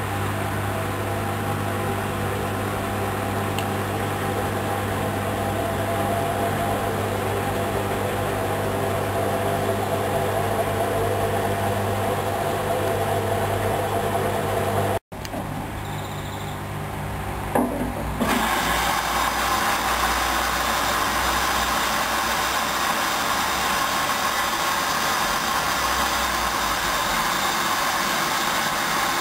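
Hoover Dynamic Wash 10+ washing machine running a wash cycle: a steady motor hum with the drum turning. The sound cuts out abruptly about halfway through, stays quieter for a few seconds with a single knock, then the machine runs on with a steadier, brighter noise.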